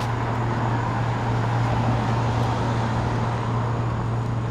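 Steady street traffic noise with a constant low hum underneath.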